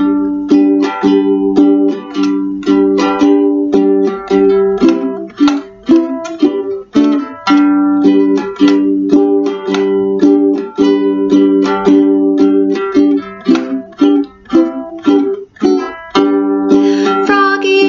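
Ukulele strummed alone in a steady rhythm, repeating the chords of a simple children's song with no voice over it.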